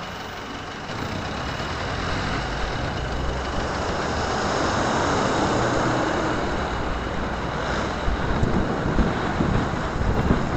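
Traffic noise heard from a moving motorcycle: a steady drone of engines and road noise from a box truck and a city bus just ahead, swelling to its loudest midway. Wind gusts on the microphone in the last couple of seconds.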